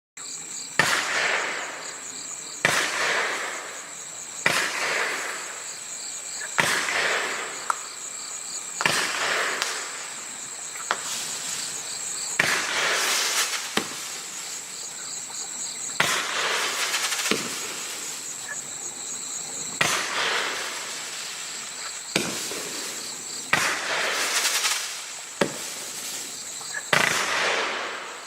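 Raccoon Fireworks Dancing Waterfall, a 33-shot 500-gram firework cake, firing: a sharp launch bang about every two seconds, each followed by a hissing spread of sound as the shell bursts. A steady high insect chirring, typical of crickets, runs underneath.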